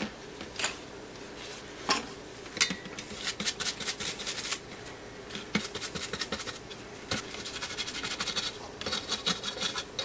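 A tissue scrubbing and rubbing over a soldered circuit board to clean off solder flux. It gives rapid scratchy scraping in spells, about three to four and a half seconds in and again near the end, with a few sharp knocks of the board being handled in the first seconds.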